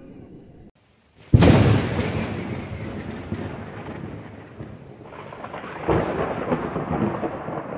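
Thunder sound effect on the title intro: a sudden loud crack about a second and a half in that fades slowly into rumbling, and a second swell of rumbling a little before the end.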